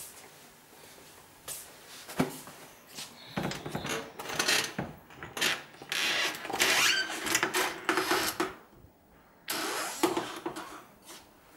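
Irregular rustling with knocks and clicks from handling wardrobe doors and their contents, broken by a short quiet gap about three-quarters of the way through.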